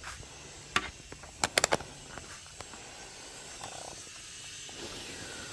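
Steady faint hiss of air escaping from four tires being aired down together through a deflation hose, with a few sharp clicks about a second and a half in.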